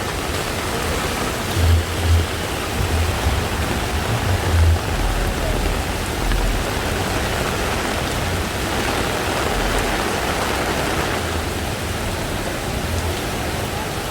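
Heavy rain pouring steadily, a dense even hiss, with a few short low thumps in the first five seconds.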